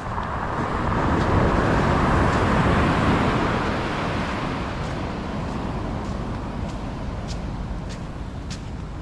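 A road vehicle passing by: its noise swells over the first two seconds or so and fades away by about halfway through. A few light clicks come near the end.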